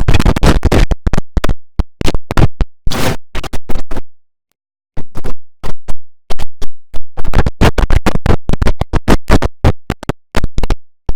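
The IBM OS/2 Warp 3 shutdown sound, digitally mangled: chopped into rapid stuttering fragments with a scratching, glitchy effect. The fragments break off for about a second just after four seconds in, then carry on.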